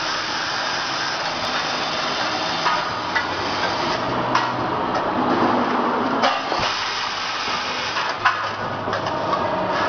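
Several vibratory bowl feeders running together: a steady buzz with small metal screws rattling and chattering in the stainless-steel bowls, and a few sharp clicks scattered through it.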